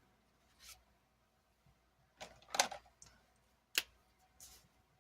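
Small handling sounds of planner supplies on a desk: a few short paper rustles and scrapes, the loudest about two and a half seconds in, and one sharp click just before four seconds.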